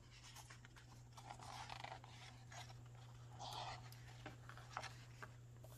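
Faint rustling of a picture book's paper page being handled and turned by hand, with a few light clicks, over a steady low hum.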